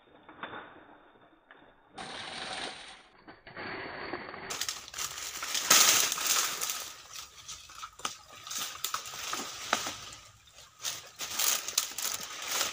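Dry, dead palm fronds crunching and rustling underfoot as someone scrambles through brush, with many short sharp crackles, loudest about six seconds in.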